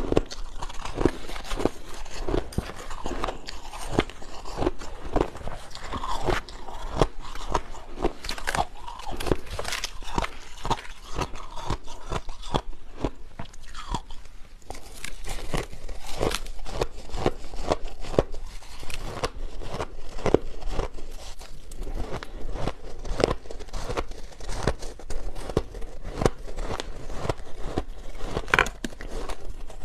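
Soft crushed ice being bitten and chewed close to the microphone: a dense run of crunches, with a brief lull about halfway through.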